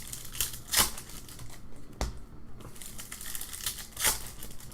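Rustling and tapping from handling at a desk, with three sharper clicks: about a second in, about two seconds in and near the end.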